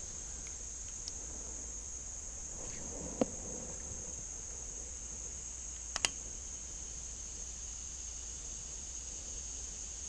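Steady high-pitched chorus of insects, with two short sharp clicks about three and six seconds in.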